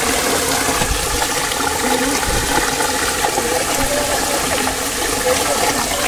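Stream water rushing steadily over rocks, with fish pieces being rinsed in a steel bowl held in the flow.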